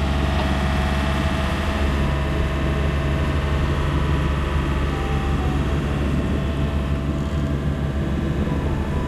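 A boat's engine running at a steady speed: an even, low drone.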